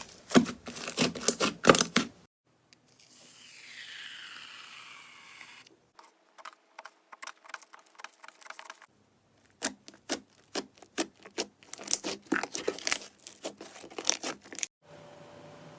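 Slime being squeezed and poked, giving rapid crackling clicks and pops in several short takes separated by brief silent cuts, with a stretch of softer hissing in between.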